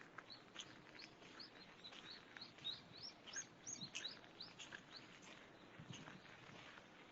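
A small songbird calling faintly: a quick series of short, high, rising chirps, about three a second, which stops about five seconds in.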